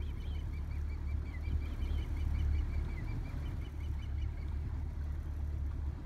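A bird calling a rapid series of short, high chirps, several a second, which stop about four seconds in, over a steady low rumble.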